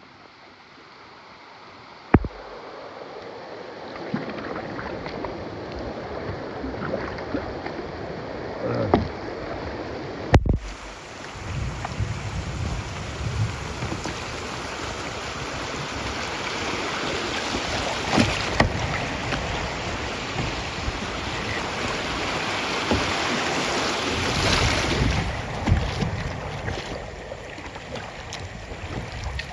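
River water rushing and splashing around a kayak on the move, with wind on the microphone. Sharp knocks stand out, the loudest about two and ten seconds in.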